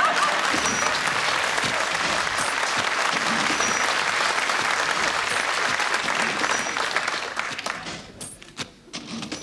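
Studio audience applauding, a steady clatter of many hands that dies away about eight seconds in.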